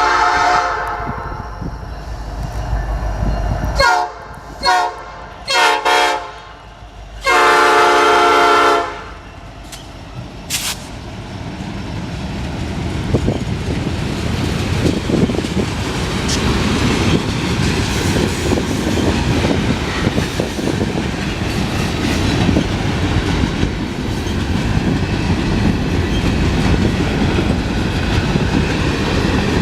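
Canadian National SD70M-2 locomotive's air horn sounding a salute: a blast tailing off at the start, three short toots about four seconds in, then one long blast of about a second and a half. After that the freight train rolls by, its rumble and wheel noise on the rails rising and holding.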